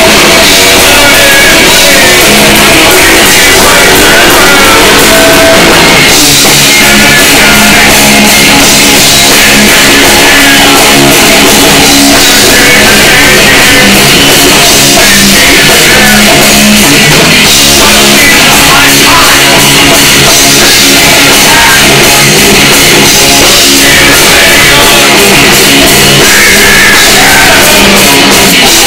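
Live rock band playing loud, with electric guitar and drum kit and a male singer singing hard into the microphone.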